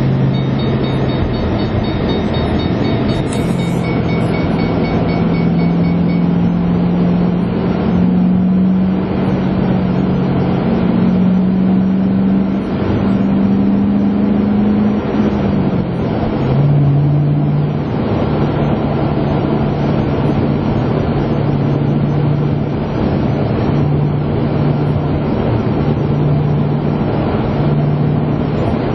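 2008 Ford Mustang's engine and road noise heard from inside the cabin while driving. The engine note climbs slowly, drops sharply about sixteen seconds in, then holds steady at cruising speed.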